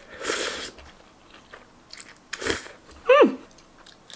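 Mouth noises of eating instant ramen noodles: two noisy slurps of a mouthful, the first starting right away and the second about two and a half seconds in. They are followed by a short, loud vocal "mm"-like sound that drops sharply in pitch, an eater's reaction to the taste.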